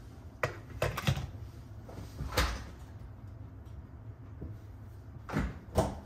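Kitchen handling knocks: a cupboard door and things, a metal milk frother among them, being set down on a counter. A cluster of sharp knocks about a second in, another around two and a half seconds, and two more near the end.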